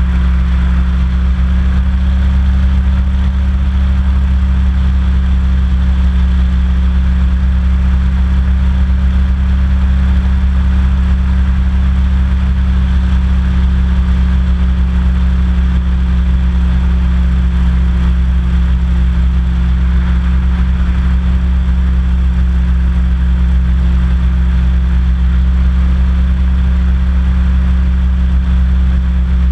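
Hovercraft engine and lift/thrust fan running steadily at cruising speed, a loud, even drone with no change in pitch, heard close up from the hull.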